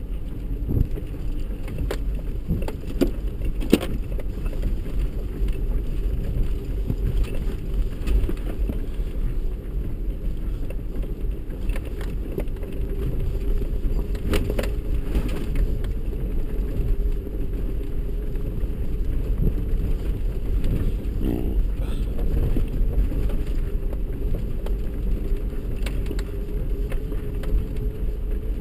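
A 4x4 crawling over a loose rocky mountain track, heard inside the cab: a steady low engine and road rumble with scattered sharp clicks and knocks from rocks and cab rattles.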